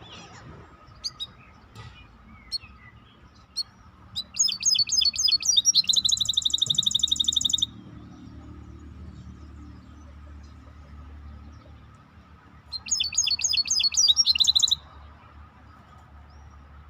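Songbird singing two loud bursts of rapid trilled song, the first about four seconds in and lasting some three seconds, ending in a fast, even rattling trill, the second shorter burst near the end. A few short single chirps come before the first burst.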